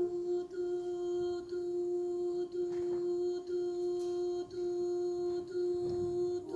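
Women's voices of an a cappella group humming one steady held note, pulsing with a short dip about once a second.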